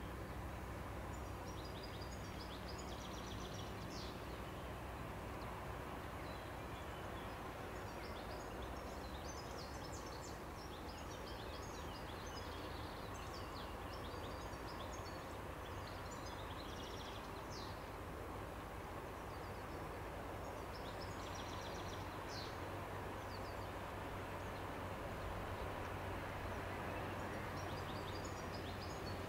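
Steady low drone of river barges' diesel engines as a tanker barge and a dry-cargo barge pass on the Rhine, with small birds chirping again and again above it.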